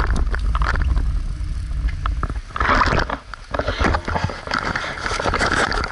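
Wind rumbling on the microphone of a camera carried on a moving bicycle. From about two and a half seconds in, it gives way to scraping and rustling as the camera is handled, with many short clicks.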